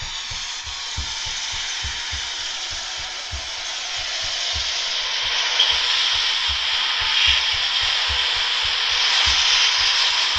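Rushing rolling noise of a freight train approaching, growing steadily louder, with irregular low thumps underneath.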